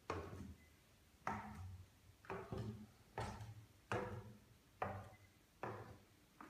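Footsteps on wooden stairs, a steady series of dull thuds a little over one a second, each a low thump with a short knock from the treads.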